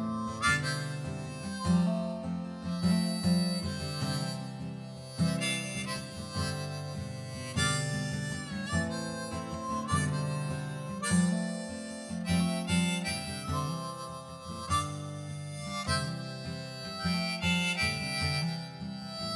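Background music: a harmonica playing a melody over a steady, repeating accompaniment of low notes.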